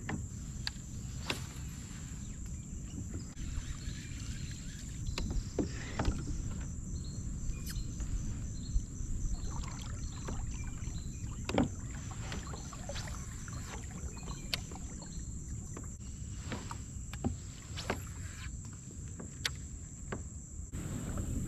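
Sounds of fishing from a kayak: a steady low rumble with scattered sharp clicks and knocks from the hull and tackle, over a steady high thin whine, with a faint rapid ticking through the middle.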